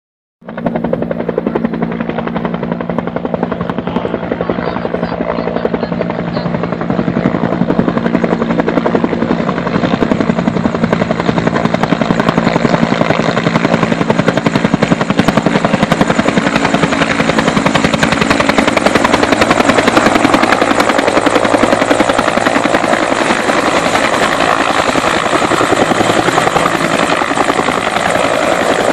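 Firefighting helicopter with a slung water bucket, its rotor blades chopping steadily as it approaches and descends to hover low over a lake, growing louder over the first twenty seconds.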